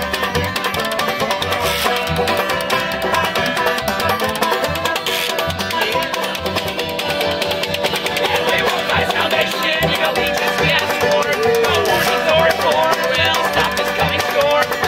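Live acoustic folk band playing an up-tempo tune: banjo, accordion and washboard scraping over a steady beat.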